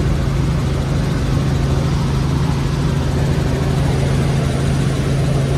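Helicopter in flight, heard from inside the cabin: the rotor and engine drone steadily with a strong low hum.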